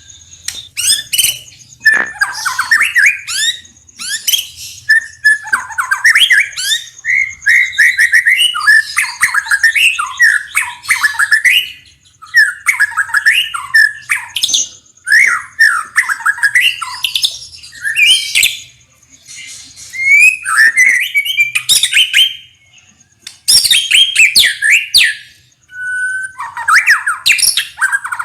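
White-rumped shama singing: long bursts of rapid, varied whistled phrases mixed with harsh notes, broken by short pauses.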